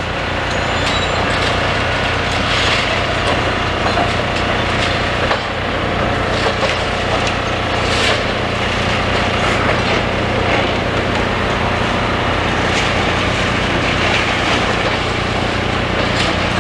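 Demolition excavators' diesel engines running steadily, with scattered cracks and crunches of concrete and rubble being broken and moved.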